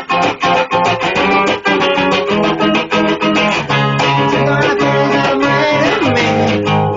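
Punk-rock band demo music led by guitars: fast strummed chords, then held chords, with a note gliding down in pitch about six seconds in.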